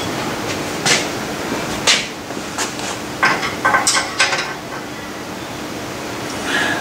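Metal-on-metal clinks and knocks from working the lathe's levelling adjustment at the tailstock end, a few spaced out and a quick cluster of them about three to four seconds in, over a steady low hum.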